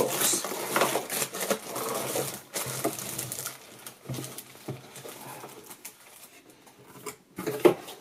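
Unpacking noise: a cardboard box and a clear plastic bag are handled, with crinkling, rustling and scraping of cardboard as the wrapped dehumidifier is drawn out. A louder bump comes near the end.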